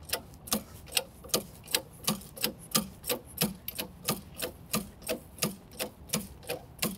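Hand-pumped hydraulic cab-tilt jack on a Mack LR cab-over truck being worked, clicking in a steady rhythm of about three strokes a second as it raises the cab.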